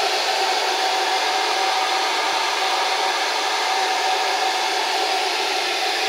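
Hand-held hair dryer running steadily, blowing air through a tube of aluminium drink cans: a constant rush of air with a faint steady hum.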